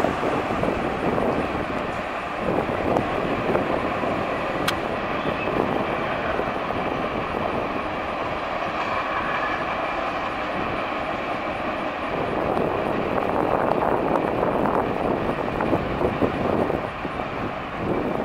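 Ford Bronco's 5.8-litre V8 running as the truck drives by slowly, mixed with wind noise on the microphone. It is loudest at the start, eases as the truck pulls away, and swells again about two-thirds of the way through as it comes back.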